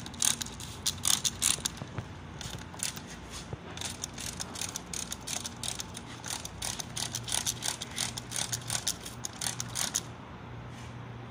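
Handheld trigger spray bottle squeezed over and over, each pump a short click and hiss of spray, about two or three a second, stopping near the end.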